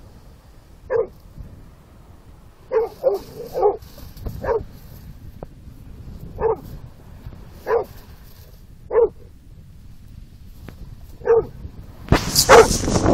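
Bullmastiff barking in single short barks every second or two, with a quick run of three about three seconds in, over a low steady rush. Near the end a loud rushing noise comes in, with another bark on top of it.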